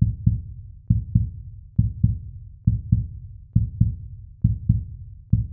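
Suspense heartbeat sound effect: paired low thumps, a lub-dub repeating steadily a little faster than once a second.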